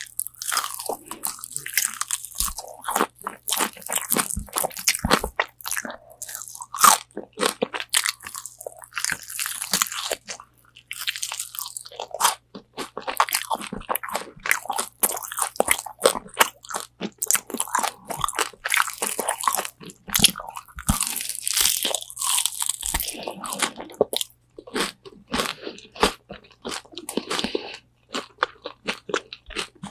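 Close-miked crunching and chewing of crispy Korean spicy fried chicken wings (BonChon). The fried coating crackles sharply with each bite, and dense bursts of crunches alternate with softer wet chewing.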